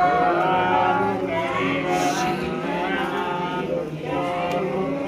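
A group of voices chanting a Hindu mantra together in a sing-song unison, as at a havan fire offering.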